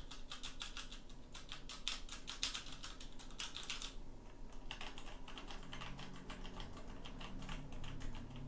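Rapid typing on mechanical keyboard keys with tactile switches, comparing a Cherry MX Brown board with the Logitech G Pro's Romer-G switches. There is a brief pause about four seconds in.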